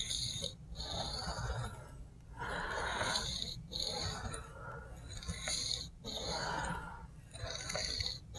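Knife blade of CRU-WEAR steel scraping back and forth on a wet sharpening stone in repeated strokes, about one a second. This is freehand work to even out the edge bevel on one side.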